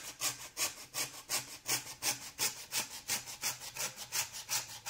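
Coping saw cutting through a thin wooden branch, in steady back-and-forth strokes about three a second.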